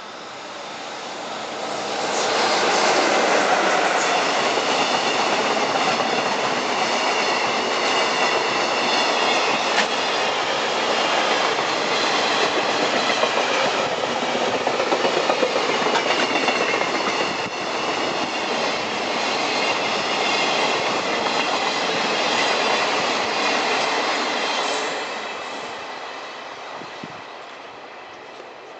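JR Freight EF66 electric locomotive hauling a freight train past at speed. The sound builds over the first couple of seconds, stays loud for about twenty seconds as the wagons go by, then dies away near the end.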